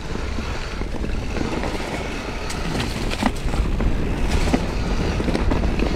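Mountain bike rolling fast down a dirt singletrack: a steady rush of tyre noise and wind over the handlebar-mounted camera, with a few sharp clicks and rattles from the bike.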